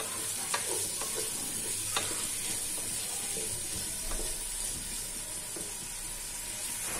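Boneless chicken pieces frying in a pot of hot oil with a steady sizzle, stirred with a wooden spoon that knocks lightly against the pot a few times.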